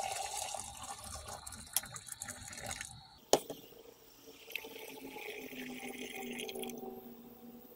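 Water poured from a kettle into a glass beaker to rinse gold powder, then a sharp knock about three seconds in, then the rinse water decanted from the beaker into a plastic bucket.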